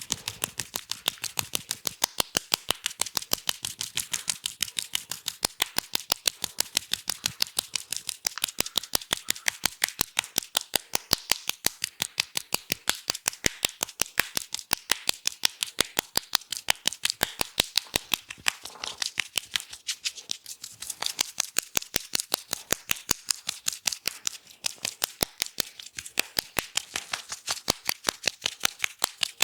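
Barber's scissors snipping rapidly and steadily: an unbroken run of sharp clicks, several a second.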